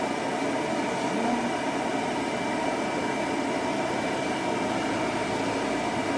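A hair dryer blowing steadily while drying a toy poodle's coat.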